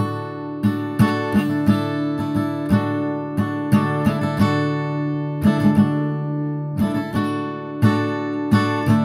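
Instrumental background music on acoustic guitar: plucked notes and chords that ring on at an easy pace.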